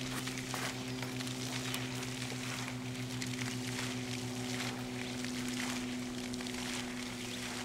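A steady low mechanical hum with a slight pulse, over faint rustling and small knocks as flags are hauled down a flagpole by their rope.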